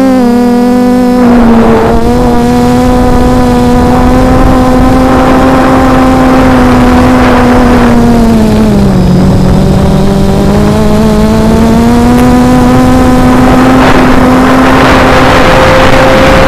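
Reptile 500 quadcopter's motors and propellers whining steadily, heard close up from the onboard camera. Their pitch sags about nine seconds in and climbs back over the next few seconds as the throttle changes. A few swells of rushing noise come and go.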